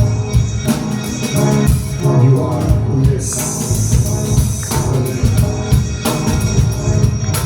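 Live band playing an instrumental passage: a steady drum-kit beat over a bass line, with no vocals.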